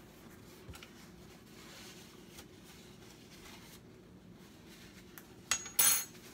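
Kitchenware clinking: a sharp click and then a louder metallic clatter with a brief ringing, about five and a half seconds in, over a faint steady background.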